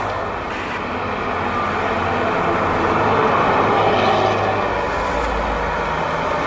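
Bus diesel engine running through a loud racing-style exhaust with a tinny, growling, noisy note, swelling a little toward the middle and easing near the end.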